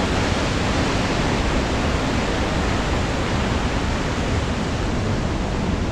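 Steady rush of a glen's stream and waterfall, an even roar of falling water.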